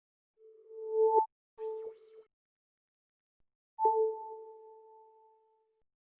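Electronic charging-notification sound effects: a tone swelling up and cutting off suddenly about a second in, a short tone after it, then about four seconds in a struck-sounding chime that fades away over a second and a half.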